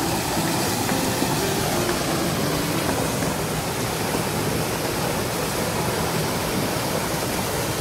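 Small waterfall pouring over rocks into a pool: a steady, even rush of falling water.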